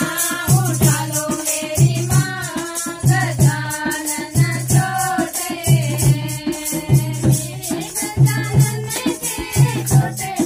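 Women singing a Hindu devotional bhajan (kirtan) to Lord Ganesh, accompanied by hand-held rattling, jingling percussion keeping a steady beat and a regular low beat.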